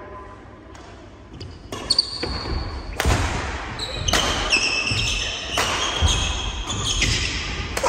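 Badminton doubles rally: rackets smacking the shuttlecock about once a second, starting about two seconds in, with short high squeaks of court shoes on the wooden floor between the hits, echoing in a large hall.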